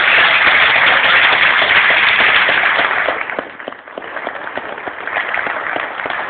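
Audience applauding, a dense burst of clapping that thins after about three seconds to scattered claps.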